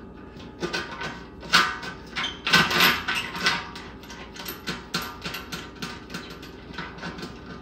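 Hands threading a nut onto a fitting through the wall of an empty stainless steel brewing kettle: a string of small metal clicks, scrapes and knocks, the loudest about a second and a half in and again around three seconds in.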